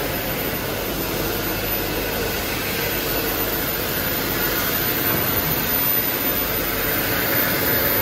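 Dyson Airblade hand dryer running: a steady, loud rush of air with a thin high-pitched whine from its motor.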